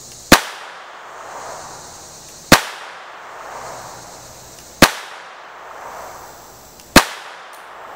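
A Beretta Model 81 pistol in .32 ACP firing four single shots, slow aimed fire a little over two seconds apart. Each shot is a sharp crack with a short echo trailing off.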